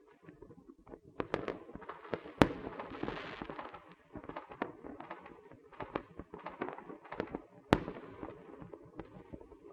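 Small fireworks and firecrackers going off: scattered sharp cracks and pops at irregular intervals, with a crackling rush about three seconds in and two louder bangs, about two and a half and seven and a half seconds in.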